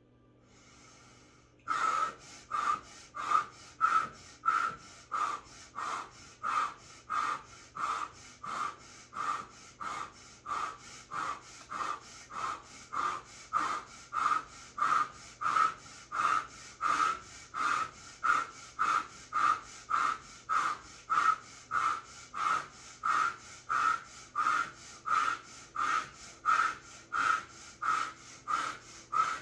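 A woman breathing rapidly and forcefully through the mouth in a steady rhythm, about three breaths every two seconds, starting about two seconds in. This is the paced breathing of an ice-bath session.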